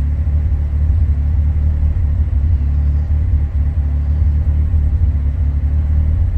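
Honda B16A engine idling steadily, a constant low rumble.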